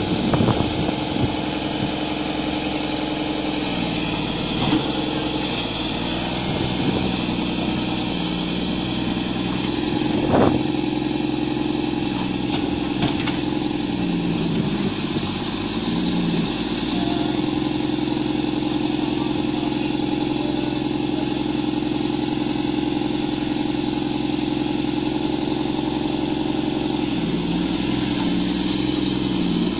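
Excavator's diesel engine running steadily, its pitch dipping and recovering several times, with a single sharp knock about ten seconds in.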